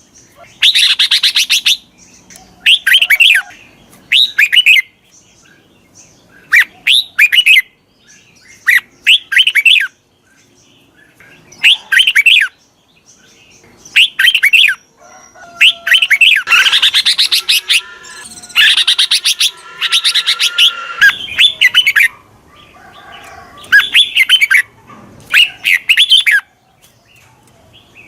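Red-whiskered bulbul calling: short, bright chirping phrases repeated every second or two, with a longer, denser run of chattering calls about two-thirds of the way through. It is a decoy bulbul's call, used to lure wild bulbuls in.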